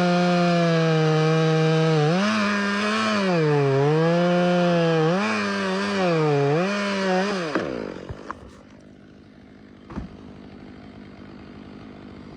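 Two-stroke chainsaw cutting through wood at full throttle, its engine pitch dipping under load and recovering every second or two. About seven seconds in, the engine winds down and the sound drops to a much quieter level, with a few clicks and a single knock.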